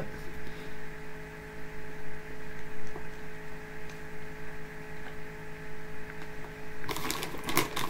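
Steady electrical hum made of several held tones over a faint hiss, with a brief vocal sound near the end.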